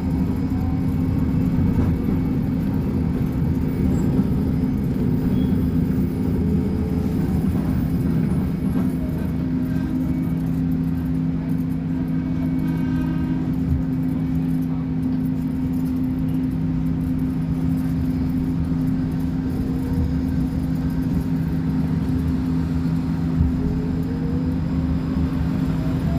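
Volkswagen 17-280 OT bus's diesel engine running steadily, with a whine rising in pitch near the end.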